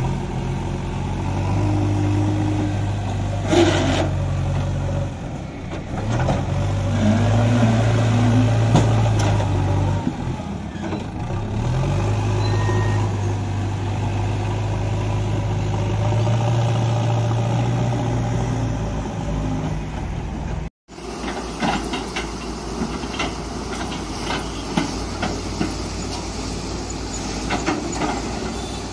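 JCB backhoe loader's diesel engine running and revving up and down as the front loader bucket works gravel. After a cut, heavy diesel engines run under an excavator and tipper truck, with repeated short knocks and clatter.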